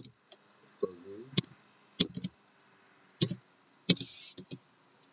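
Slow keystrokes on a computer keyboard: about five sharp, separate clicks, spaced half a second to a second apart, as letters are typed one at a time.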